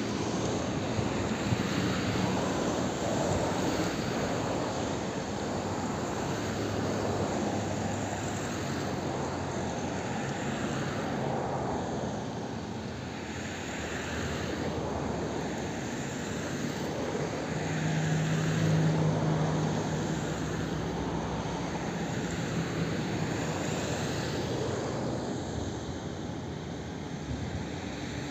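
Jet engines of a Boeing 787 airliner running as it rolls along the runway: a steady rushing noise with a low hum. It swells a little about two-thirds of the way through.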